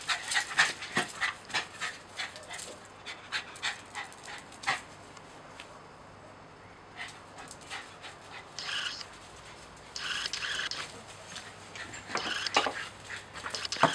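Small dog panting in quick short breaths, fading after about five seconds. A few short higher-pitched calls come later.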